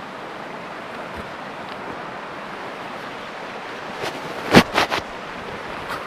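Steady rush of a fast-flowing, rocky woodland stream. About four seconds in comes a short cluster of handling noises, one sharp knock followed by two quicker ones, as outdoor gear such as a rolled ground mat is handled.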